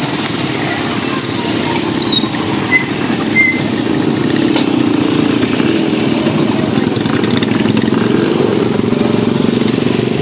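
A line of small motorcycles riding slowly past one after another, their engines running together in a steady, continuous sound.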